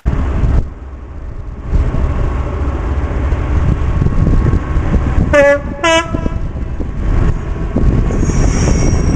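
Train running with a steady low rumble; about halfway through, its two-tone horn sounds two short notes in quick succession, the second a little higher.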